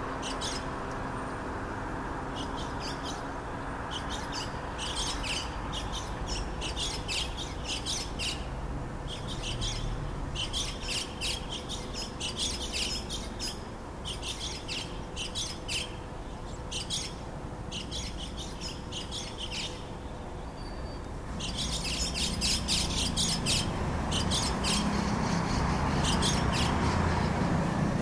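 White-cheeked starling calls: bouts of quick, high chattering notes with short pauses between them. Behind them is a steady low background hum that grows louder in the last few seconds.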